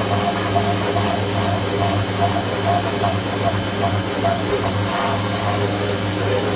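Electric pressure washer running while spraying the underside of a car: a steady motor hum with the hiss of the water jet.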